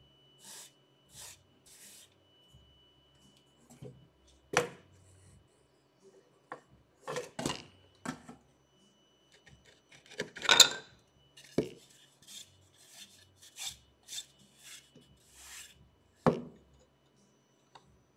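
A thick wooden board being slid, rubbed and turned by hand on an MDF machine table: scraping rubs of wood on wood, broken by several knocks as it is shifted and set down, the loudest about ten and a half seconds in.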